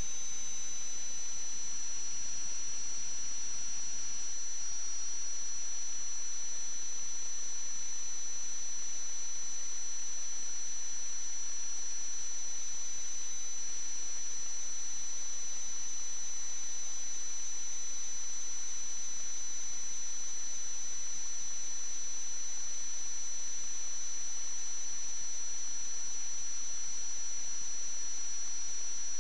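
Steady electronic hiss with two constant high-pitched whine tones: line noise in the sewer inspection camera system's recording.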